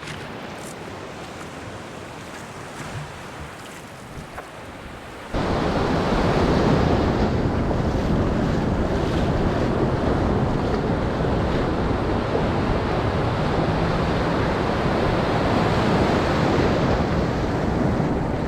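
Ocean surf rushing, with wind buffeting the microphone. The noise jumps suddenly louder about five seconds in and stays at that level.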